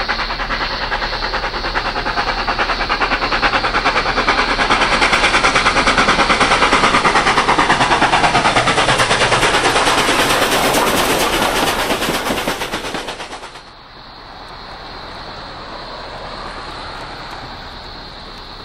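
NSW C36 class 4-6-0 steam locomotive 3642 working hard up grade, its exhaust beating in a rapid, even rhythm. The chuffing grows loudest as the engine passes close by, about ten seconds in, then drops abruptly to a fainter, more distant working sound about fourteen seconds in.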